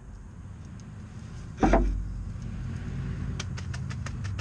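A single heavy metallic clunk about one and a half seconds in, with a short ring, as the unbolted rear brake caliper is handled and moved aside, followed by a few light metal clicks.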